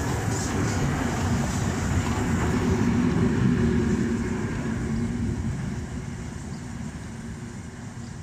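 Deutsche Reichsbahn class 01 steam locomotive and its coal tender rolling past close by, the wheels and running gear loudest about three seconds in, then fading as the train moves away.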